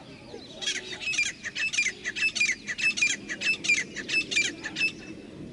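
Grey francolin calling: a rapid run of sharp, high-pitched notes, several a second, starting about half a second in and stopping shortly before the end.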